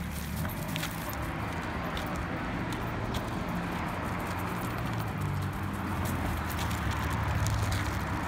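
Brisk walking of a person and a leashed dog on grass and pavement: scattered footstep and paw clicks over a steady low rumble, with rustle from the hand-held phone.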